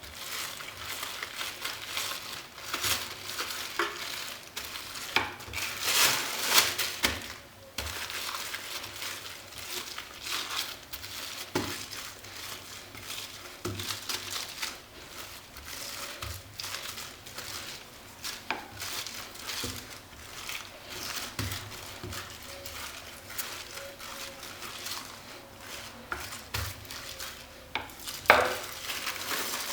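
Rolling pin going back and forth over cookie dough inside a plastic bag: the plastic crinkles and rustles under the pin, with a few knocks on the work surface.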